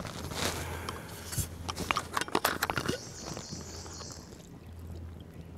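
Small stainless steel cup clinking and scraping as it is shifted among a campfire's coals, with a run of light knocks, then a brief steady hiss about three seconds in.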